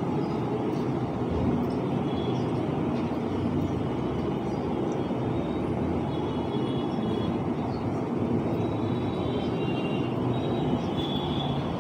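Steady low background noise, a constant hum and hiss with no speech.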